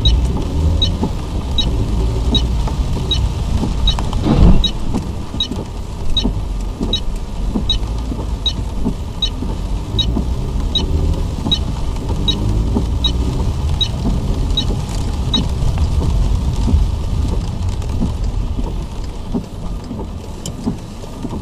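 Car cabin on the move over wet road in rain: engine and tyre rumble with the hiss of spray, and a turn signal ticking about once every three-quarters of a second that stops about 15 seconds in. A loud thump comes about four seconds in.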